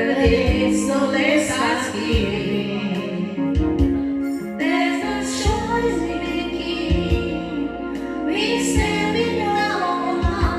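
A song: a female voice singing over instrumental accompaniment with a steady bass line.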